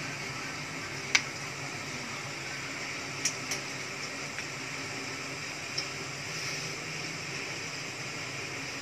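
Metal ring cutters clicking against a wooden board as they are pressed through potato dough: one sharp click about a second in, two close together a little after three seconds, and a fainter one near six seconds, over a steady fan-like hiss.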